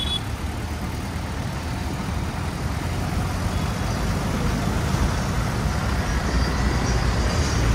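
Steady low engine and road rumble of a motorbike riding in dense city traffic, with cars and trucks running close alongside.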